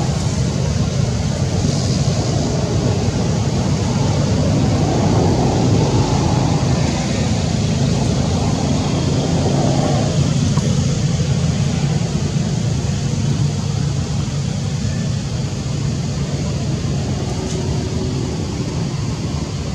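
Steady low rumble with a hiss of outdoor background noise, unchanging throughout.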